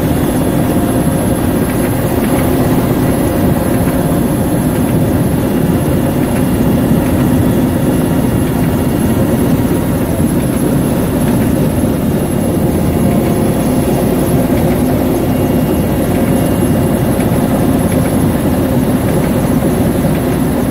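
Twin-turboshaft transport helicopter's engines and main rotor running steadily, heard inside the cockpit: a loud, even drone with a thin high whine over it.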